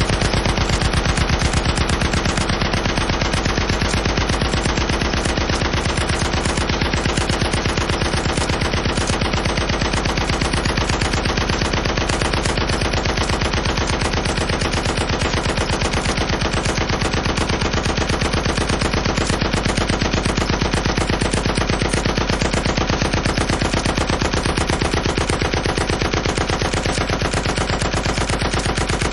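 Heavy machine gun firing one long, unbroken burst of rapid, evenly spaced shots.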